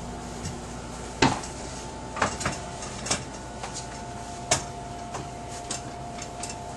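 A handful of irregular knocks and clicks, the loudest about a second in and again past the middle, over a steady faint electrical hum.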